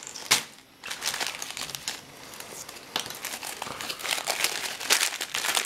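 Plastic packaging crinkling and crackling as it is handled and opened by hand, with irregular sharp crackles.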